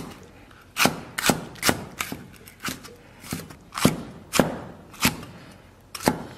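A Chinese cleaver chops red screw peppers on a round wooden chopping block: about ten sharp knocks of the blade on the wood, roughly two a second, with a short gap near the end.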